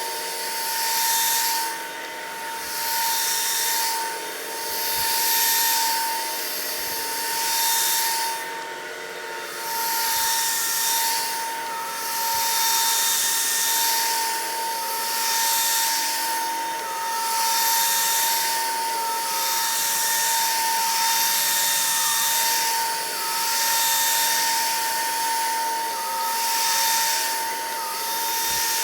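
Cordless stick vacuum running: a steady motor whine under a rushing suction hiss that swells and fades every couple of seconds.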